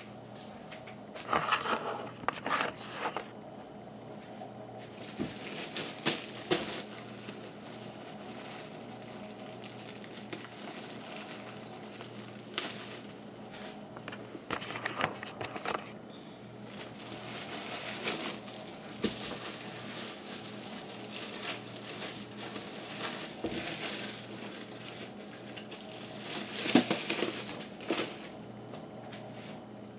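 Plastic packaging crinkling and rustling as kitchen items are handled on a counter, in irregular bursts with occasional light knocks.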